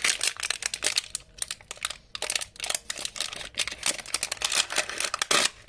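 Wrapping of a mystery surprise ball crinkling and crackling as it is peeled and torn open by hand, a dense run of rapid irregular crackles.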